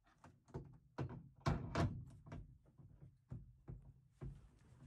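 Irregular knocks and thunks from a steering wheel being handled and fitted onto the splined steering column shaft, about a dozen in all, the loudest pair about a second and a half in.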